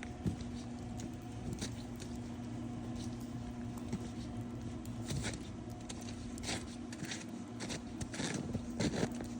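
Footsteps scuffing and crunching in snow, irregular steps that bunch together in the second half, over a steady low hum.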